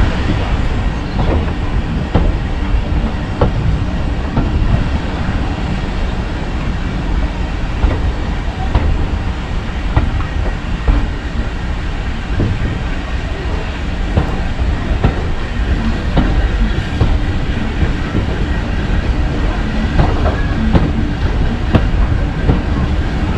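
Heritage railway train running along the track: a steady low rumble, with wheels clicking over rail joints every second or two at uneven intervals.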